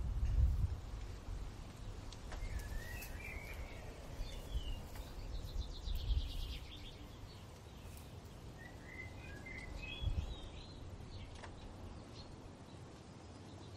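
Background birds twittering in short chirping phrases, a few seconds in and again around ten seconds, with a fast trill in between, over a low rumble.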